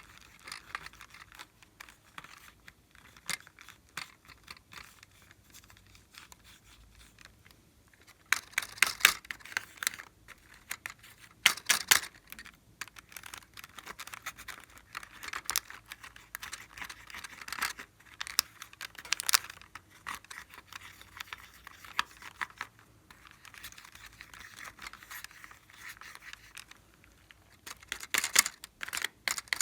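Clear slime being worked by hand, giving sticky crackling and clicking in bursts. It is faint for the first several seconds, then louder from about eight seconds in, with the loudest stretch near the end.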